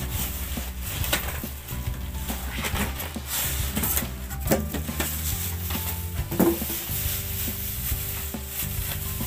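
Thin plastic wrapping bag crinkling and rustling in irregular crackles as it is pulled off an air-conditioner indoor unit, with music underneath.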